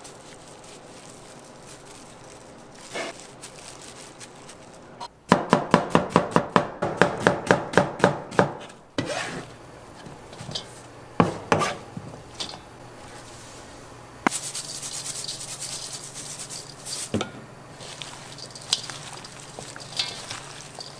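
Kitchen knife chopping on a cutting board: a fast run of about six chops a second for three or four seconds, then a few single chops. A steady hiss follows for the last third.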